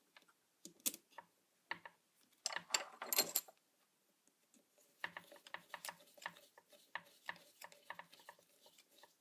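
Hand screwdriver driving small screws into the steering parts of an Axial RC car: light clicks and scrapes of tool and parts, with a louder rattle of clicks around three seconds in and a run of quick small clicks through the second half.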